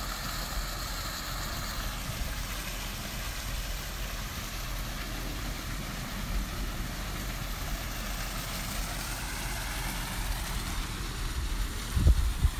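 Steady rush of water from a pool's sheet waterfall spilling into the pool, over a constant low rumble. A few low bumps come near the end.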